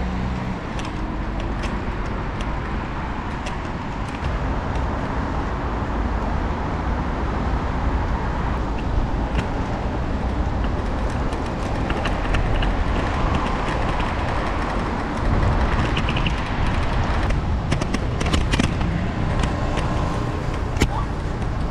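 Motor scooter riding along a city street: a steady low rumble of wind on the microphone mixed with the small engine and passing traffic, getting a little louder about four seconds in and again about fifteen seconds in.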